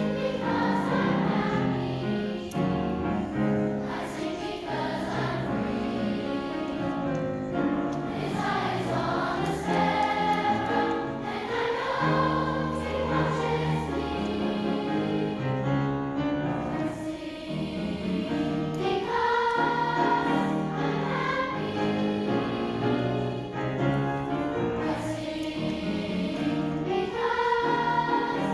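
Children's choir singing with grand piano accompaniment.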